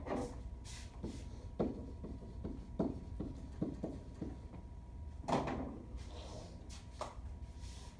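Footsteps and light knocks as a person walks across a classroom floor to a whiteboard and writes on it with a marker. About eight short, separate knocks, the loudest a little past the middle.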